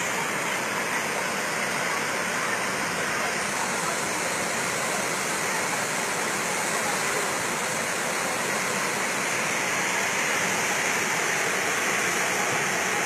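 Muddy floodwater rushing down a street, a steady, unbroken torrent.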